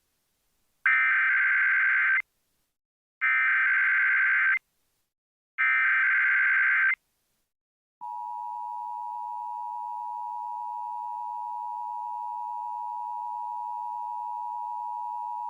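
Emergency Alert System test signal: three bursts of SAME header data, each a harsh digital warble about a second and a half long, about a second apart. About eight seconds in, the steady two-tone EAS attention signal (853 and 960 Hz) starts.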